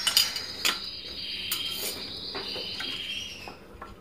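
A metal spoon clinking against a glass several times, over a steady high ringing tone.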